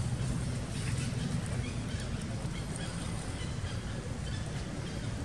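Steady low rumbling outdoor background noise, with faint high chirps scattered through it.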